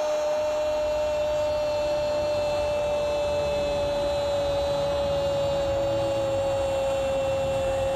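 A Spanish TV football commentator's long held goal shout, one sustained note that sags slightly near the end, over stadium crowd noise.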